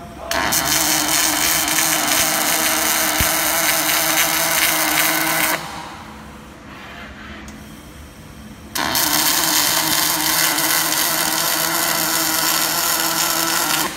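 MIG welding arc on a four-axis automatic welding machine, running with a steady, even hiss in two welds: one of about five seconds starting just after the start, then a pause of about three seconds, then a second of about five seconds that stops right at the end.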